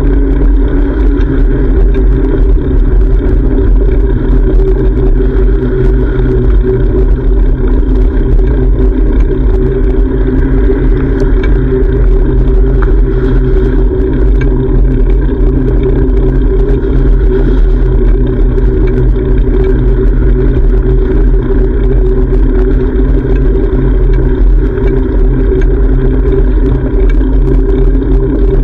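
Loud, steady low rumble of riding noise on a bicycle-mounted GoPro, wind and road noise with town traffic mixed in, unchanging for the whole stretch.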